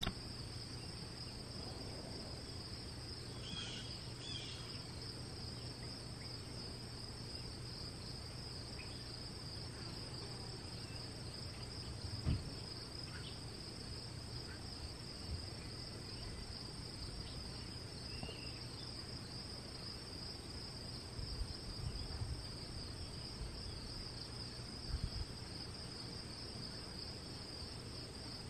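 Steady high-pitched chorus of insects, like crickets, with a low background hum and a few soft low thumps, the strongest about twelve seconds in.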